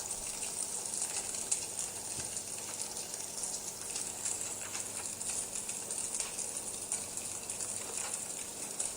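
Crackling fire sound effect from the Sphero app's 'fire' mode, played through the controlling device's speaker. It is a steady hiss with scattered crackles and pops.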